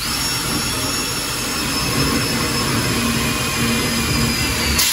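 Cordless drill driving a self-tapping screw, its motor running steadily at one pitch.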